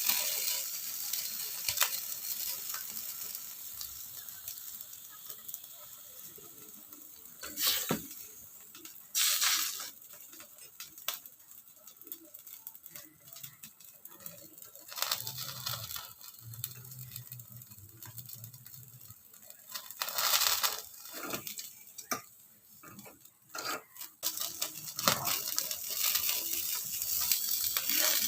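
Pork sizzling in a hot pan, with several louder bursts of stirring and scraping from cooking utensils.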